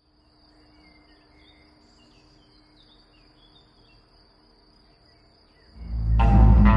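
A faint, steady insect trill with a few scattered bird chirps. About six seconds in, loud music comes in with a deep bass swell and then a strong chord.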